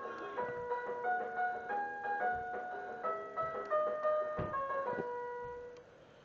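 Tinny electronic tune from a baby's plastic musical piano toy, a simple melody of single notes that stops near the end. A few soft thumps sound under it.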